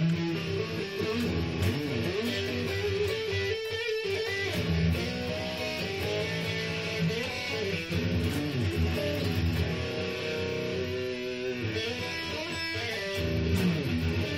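Stratocaster-style electric guitar played through an amplifier: a run of held notes, some sliding and bending in pitch.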